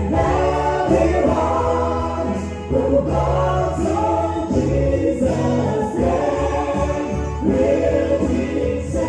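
A group of worship singers singing a gospel song together into microphones, with live electronic keyboard accompaniment, amplified through PA loudspeakers.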